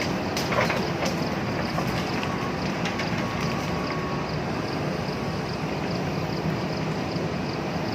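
JCB backhoe loader's diesel engine running steadily, with several sharp knocks in the first few seconds.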